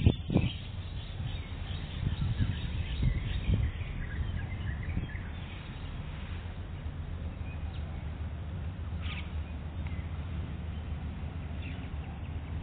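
Outdoor park ambience: a few faint, scattered bird chirps over a steady low rumble, with a short thump right at the start.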